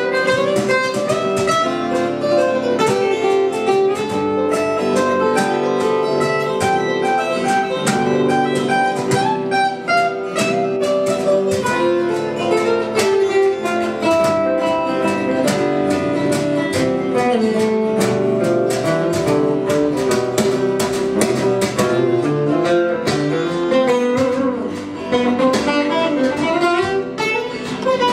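Guitar music with quick picked notes, playing on without a break.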